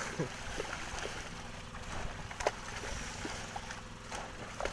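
Seawater splashing and churning at the surface as squid thrash and jump beside the boat, with a few sharp splashes over a soft wash. A steady low hum runs underneath.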